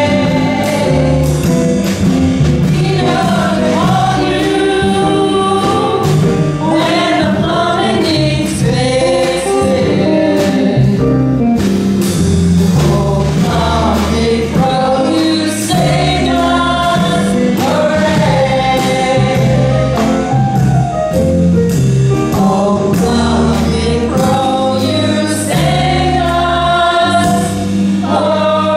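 A group of voices singing a song together over instrumental accompaniment with a steady bass line and beat.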